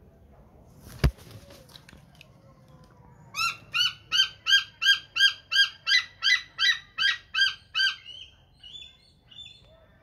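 A sharp click about a second in, then a white-tailed eagle calling: a run of about a dozen high, ringing notes at roughly three a second, followed by two fainter notes near the end.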